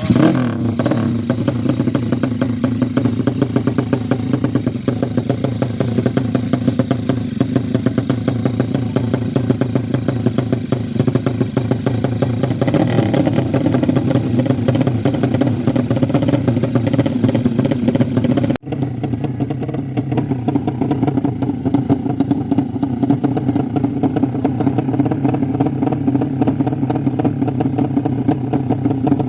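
Modified 200cc underbone motorcycle engine running steadily at a fast idle, with a hint of throttle around the middle and a brief break about two-thirds through.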